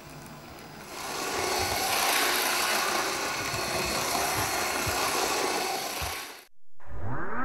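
Graham Farish N gauge DP1 Deltic model locomotive running on its track, a steady rasping whirr of the small motor and wheels that grows louder about a second in as the train comes round near the front of the layout. It cuts off suddenly near the end, and music with rising synth tones begins.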